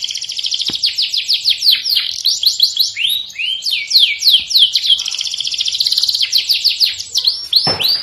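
Domestic canary singing a fast, unbroken song of rapid downward-sweeping notes and dense rolling trills. A long note falls steeply near the end.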